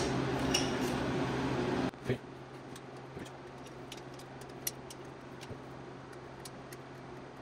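Light metallic clicks and taps, a handful of them spread out, from a thin metal rod working against stuck tappets in the bores of a Triumph TR4 engine block as the tappets refuse to come out. A steady hum underneath cuts off about two seconds in.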